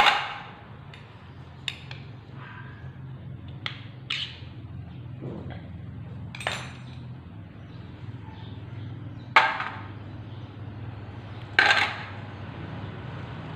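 Metal tools and engine parts clinking and knocking during motorcycle engine repair: about seven sharp clinks at uneven intervals, the loudest at the start and twice more past the middle, over a steady low hum.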